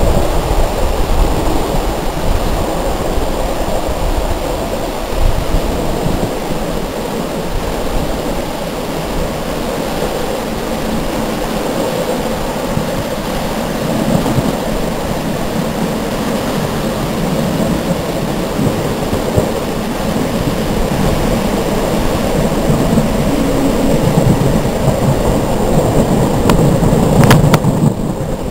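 Wind buffeting a microphone held out of a moving passenger train's window, over the steady rumble of the train rolling along the track; the noise grows louder towards the end, and a sharp click sounds near the end.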